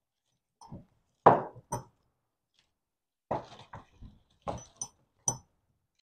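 A car wiring harness being handled: its hard plastic connectors, clips and fuse box knocking and clicking against each other and the table, with wires rustling. The sound is a scatter of short clicks and knocks with gaps between them, the loudest about a second in.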